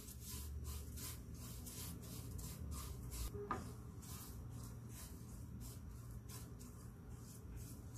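Silicone spatula stirring and scraping across a nonstick frying pan in repeated faint strokes as sugar melts in ghee to caramel.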